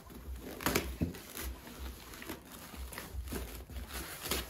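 Brown kraft packing paper and the wrapping around a coil spring crinkling and rustling in short, irregular rustles as the wrapped spring is lifted out of a cardboard box.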